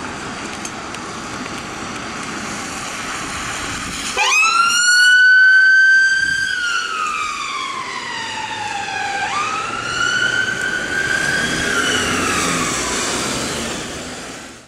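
Emergency ambulance Land Rover Discovery passing on a wet road, first with only road and engine noise. Then its wail siren starts: a fast climb, a held tone, a slow fall over about three seconds, then a second climb and fall. The sound cuts off suddenly at the end.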